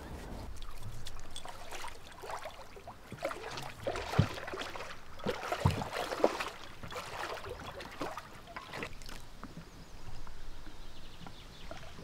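Scattered wooden knocks and clatter of gear being handled aboard a wooden rowing boat, the sharpest knocks about four and six seconds in, over a faint trickle of water.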